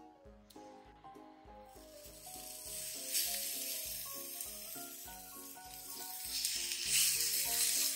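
Food sizzling in a hot pan, the sizzle starting about two seconds in and getting louder, over background music with a steady beat.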